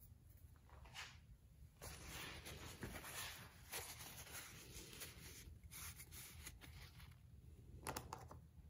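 Faint rustling and handling noise of a paper towel wiping the nozzle of a tube of weatherstrip adhesive clean, with a few soft ticks.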